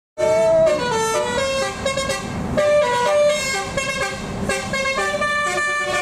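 Indonesian 'telolet basuri' multi-tone bus horn playing a quick tune of short, stepped notes.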